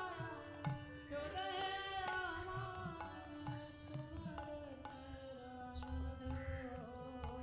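Indian devotional background music: a voice singing over a held drone, with hand-drum beats keeping a steady rhythm.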